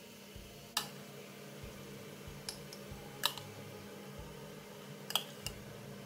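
Tomato wedges being packed into a glass jar: about five light, sharp clicks and taps against the glass, spaced irregularly.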